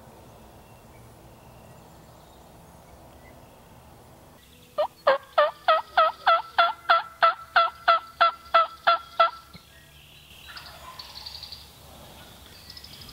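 A loud series of about fifteen turkey yelps, evenly spaced at roughly three a second, each note breaking sharply upward in pitch, starting just under five seconds in and stopping about four and a half seconds later. Fainter sounds follow a second afterwards.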